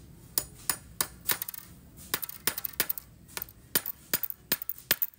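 Small hammer tapping a long nail through an iron garden-rake head into its wooden handle: an irregular run of sharp metallic strikes, about two to three a second.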